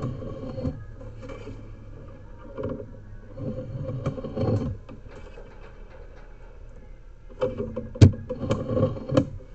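Sewer inspection camera push cable and reel rattling and knocking as the camera is fed forward and pulled back through the line, with a sharp knock about eight seconds in.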